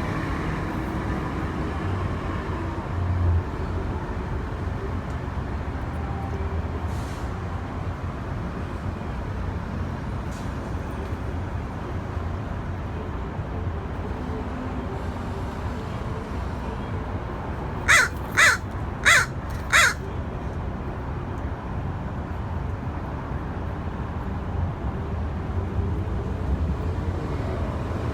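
Crow cawing four times in quick succession, about half a second apart, over a steady low background rumble.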